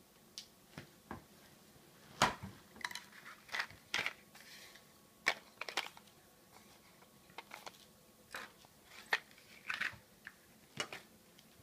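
Stiff plastic blister packaging and its cardboard backing being pulled apart and handled to free a small pair of craft scissors. It makes irregular crackles, snaps and clicks.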